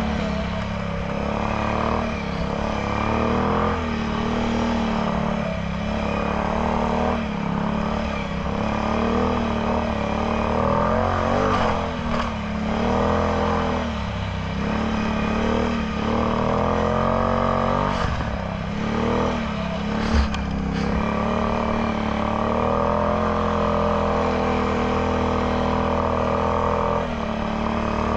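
Can-Am Outlander X MR 850 ATV's V-twin engine running through a Yoshimura slip-on exhaust on the move, the throttle opened and eased off again and again so the pitch rises and falls every second or two. A couple of short sharp knocks come about two-thirds of the way through.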